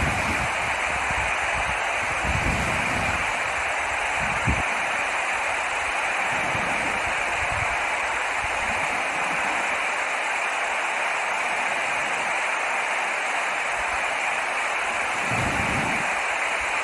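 Steady rushing of flowing water, an even hiss with no change in level, broken by a few brief low rumbles.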